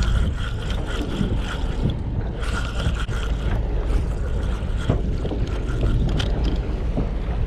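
Steady low rumble aboard a charter fishing boat, with wind on the microphone and a faint whine that comes and goes.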